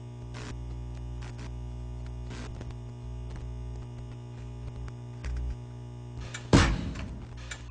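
A steady electrical mains hum with a few faint clicks, then a loud drum hit about six and a half seconds in and another right at the end.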